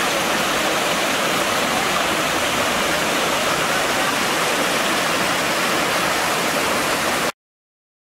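Creek water rushing through a logjam of fallen logs and spilling over small cascades, a steady even rush that stops suddenly near the end.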